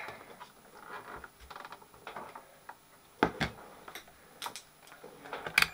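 Handling noises at a workbench: a scatter of sharp clicks and small knocks as the plastic battery-pack connector of a UPS is unplugged and a multimeter and its test leads are set out, with a quick run of small ticks about a second and a half in and the loudest knocks just after three seconds and near the end.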